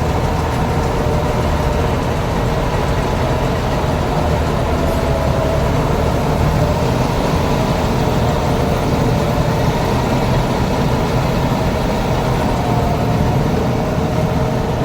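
Combine rice harvester running steadily: a heavy engine drone with a constant machinery hum.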